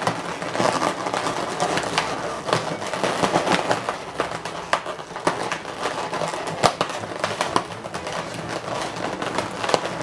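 Latex twisting balloons rubbing and squeaking as they are twisted and pressed together by hand, with many irregular sharp creaks and clicks.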